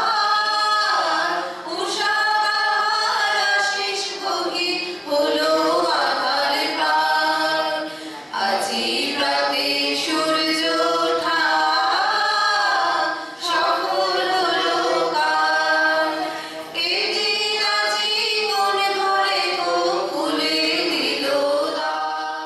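A mixed group of women and men singing a song together, in sung phrases a few seconds long with brief breaths between them.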